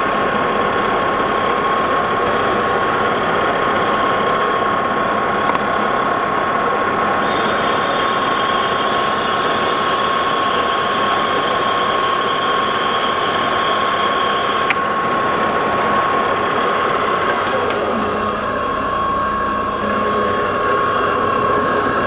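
Lodge and Shipley engine lathe running under a turning cut on brass stock, the tool taking the diameter down: a steady machine din with a constant whine. From about seven seconds in to about fifteen seconds in, a brighter hiss joins it, then stops suddenly.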